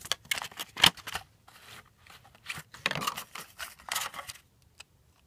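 Fidget Cube packaging being handled and opened: bursts of rustling and scraping, with one sharp click about a second in, settling to a few faint ticks near the end.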